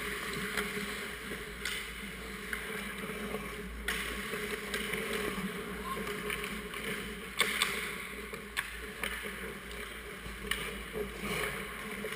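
Ice hockey play close to the goal: skate blades scraping and carving the ice as a steady hiss, with scattered sharp clacks of sticks and puck. The loudest clack comes about seven seconds in.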